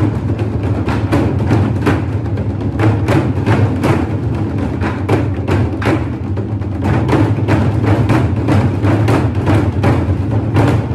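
Music with a steady, even percussive beat over a continuous deep bass.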